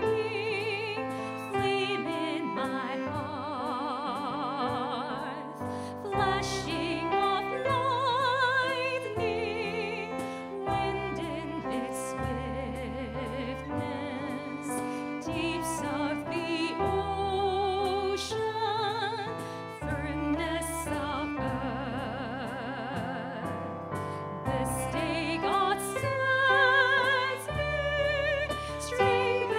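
Closing hymn at the end of a Mass: a singer with strong vibrato carries the melody over instrumental accompaniment with a sustained bass that steps from chord to chord.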